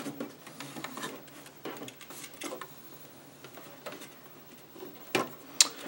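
Light plastic clicks and taps from hands handling an inkjet printer's ink-line tubing and carriage, with two sharper clicks near the end.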